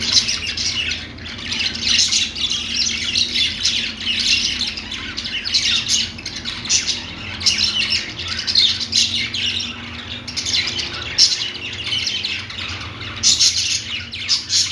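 Several budgies (budgerigars) chattering and warbling at once, a continuous jumble of chirps and squawks.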